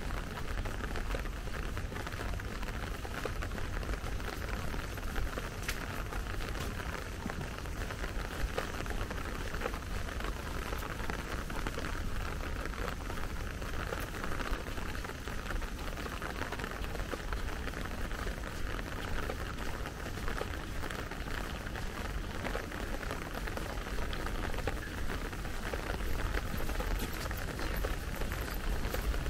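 Steady rain falling and pattering on wet paving, with a low steady rumble underneath.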